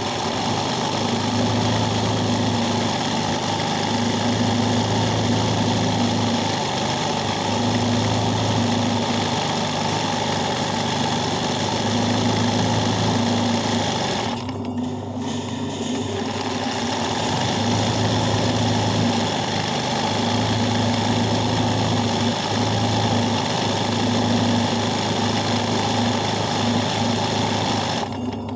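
Sewing machine running fast and steady, stitching free-motion embroidery. About halfway through, the stitching breaks off for a second or so while a low hum carries on, then it resumes.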